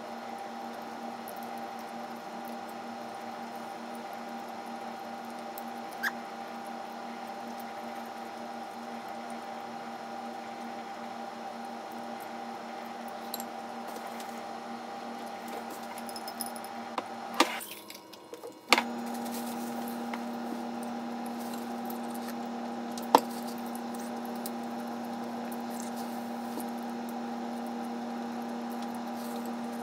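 Quiet eating with wooden chopsticks over a glass bowl: a few sharp single clicks of the chopsticks against the glass over a steady background hum. The hum drops out for about a second a little past halfway, bracketed by two clicks.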